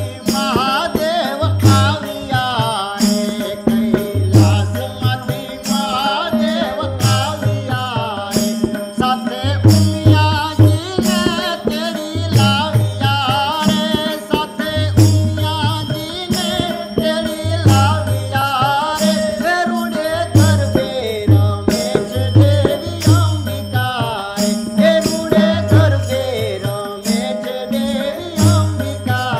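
Gujarati garba folk music: tabla playing a steady dance rhythm with deep bass strokes, while small hand cymbals and wooden kartal clappers jingle and clack on the beat under a wavering melody.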